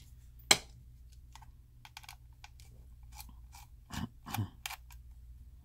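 Small clicks and ticks of a Phillips screwdriver working screws out of a plastic hard-drive enclosure. There is one sharp, loud click about half a second in and a couple of duller knocks around four seconds.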